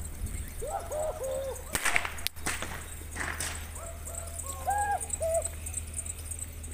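Several sharp cracks from carnival dancers' long rope whips, about two to three and a half seconds in. Short hooting calls come before and after the cracks.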